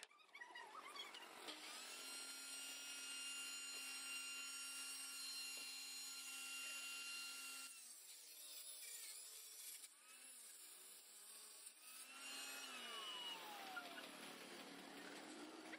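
Table saw's circular blade cutting a laminated MDF sheet. A steady whine runs for about six seconds and cuts off about eight seconds in, followed by rougher cutting noise with a falling whine near the end.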